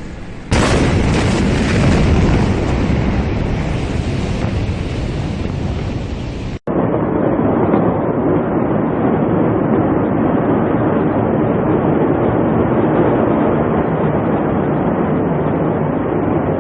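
A huge explosion recorded from a distance: a sudden blast about half a second in, followed by several seconds of loud noise that slowly dies down. After a cut, a duller steady rumble of noise continues from another recording.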